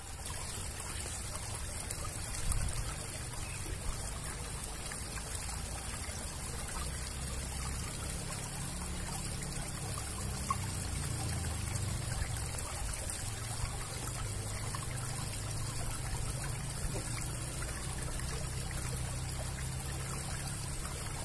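Water running and trickling through a concrete drainage culvert: a steady low rumble with a hiss over it.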